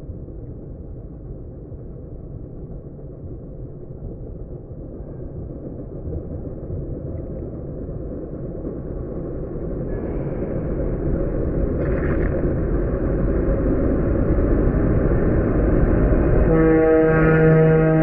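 Scania fire engine's diesel engine rumbling and growing louder as the appliance pulls out, with a short hiss about twelve seconds in. Near the end its two-tone horns start, slowed down by slow-motion playback so they sound deep and drawn out.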